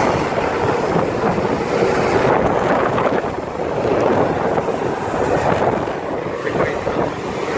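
Helicopter in flight heard from on board: a loud, steady rushing noise of engine, rotor and airflow.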